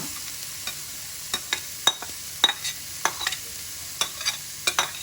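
Minced chicken frying in hot oil in a pan: a steady sizzle, with a spatula knocking and scraping against the pan a dozen or so times at irregular intervals as the mince is stirred and broken up.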